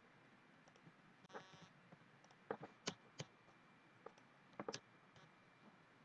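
Faint, scattered clicks of a computer mouse and keyboard during spreadsheet editing. There are about half a dozen sharp clicks, some in quick pairs, mostly in the second half.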